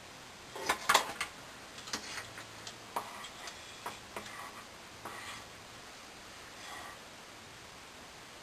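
Curling iron being handled in the hair: a cluster of sharp clicks and rustles about a second in, then scattered single clicks roughly once a second.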